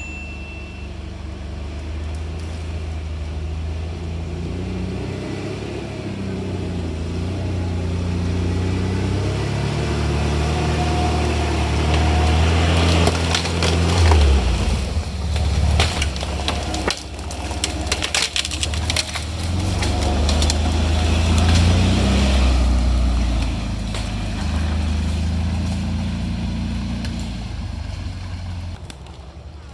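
Off-road vehicle engine running under load, its pitch rising and falling as it revs, with a spell of loud crackling and crunching in the middle.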